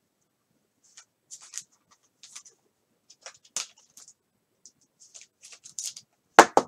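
A trading card being slid into a plastic sleeve and a rigid plastic top loader: soft scraping and rustling of card and plastic, with a couple of sharp plastic clicks near the end.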